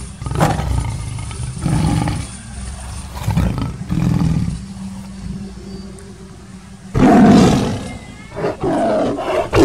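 Tiger growls and roars in several bouts, the loudest about seven seconds in.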